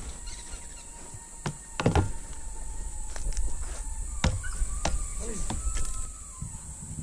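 A plastic snake holding bin is set down on dry ground and handled with snake tongs, giving a few sharp clicks and knocks, the loudest about two seconds in. A faint steady tone runs underneath.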